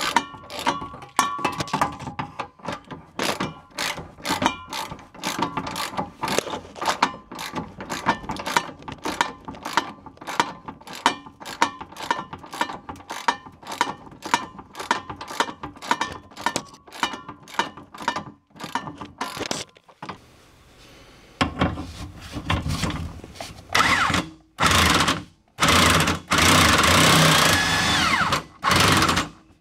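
Hand ratchet clicking in quick, even strokes as it turns the bolt of a fuel-tank strap. Near the end, a power wrench runs in several loud short bursts.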